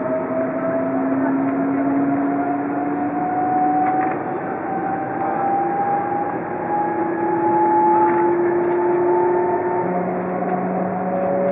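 Shinkansen traction motors whining as the train accelerates, heard inside the passenger car: several tones climb slowly and steadily over the rumble of the train running, then drop to a lower pitch about ten seconds in.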